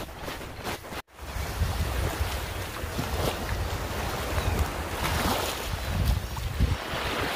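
Small waves washing up on a sandy beach, with wind buffeting the microphone as a low rumble. It starts after a short break about a second in.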